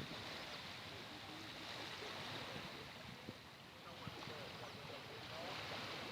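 Bay of Bengal surf washing up the beach in a steady wash that eases off about halfway and builds again toward the end, with faint distant voices.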